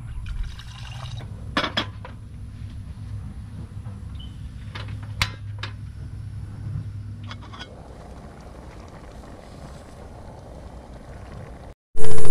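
Tap water runs briefly into a metal camping cook pot, then the pot and its lid clink and a few sharp clicks come as it is set on a portable gas stove and the knob is turned, followed by a soft steady hiss of the lit burner. Right at the end a much louder steady sound cuts in suddenly.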